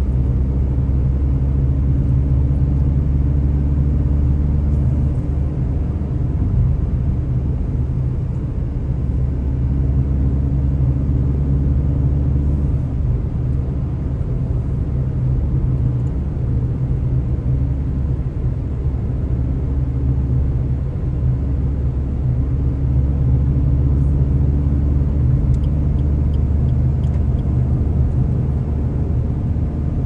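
Car driving on the road: a steady low rumble of engine and road noise, with an engine hum that swells and fades several times.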